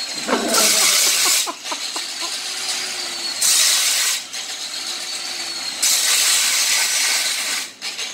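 Handheld angle grinder working on a steel Baja Warrior minibike frame: a thin whine that slowly sags in pitch, broken by three stretches of loud, harsh grinding, each about one to two seconds long, as the disc bites the metal. The grinder is said to be on its last leg.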